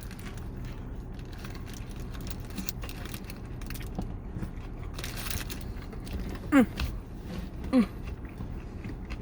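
Chewing and eating noises: small clicks and a brief rustle over a steady low hum. Two short, falling voiced sounds stand out about two-thirds of the way through.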